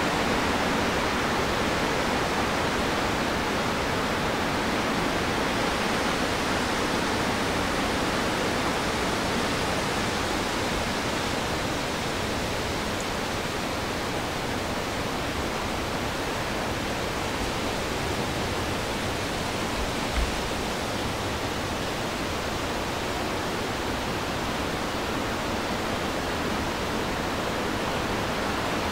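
Steady, even rushing noise with no animal calls, and one brief low thump about twenty seconds in.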